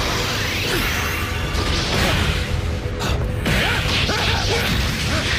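Anime fight sound effects: rushing whooshes of fast movement and a flaring energy aura in surging waves, with blows landing, over the dramatic music score.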